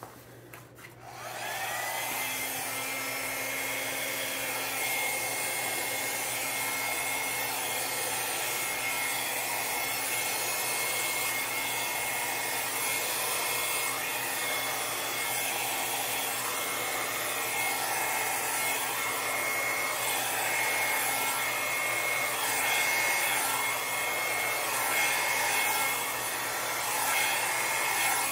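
Handheld hair dryer switched on about a second in. Its motor quickly rises to a steady whine over a rush of blowing air.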